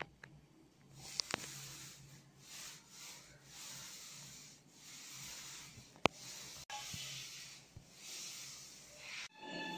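Paint roller worked over wet paint on a wall in rapid back-and-forth strokes: a repeated rubbing swish, with a few sharp clicks. Music starts near the end.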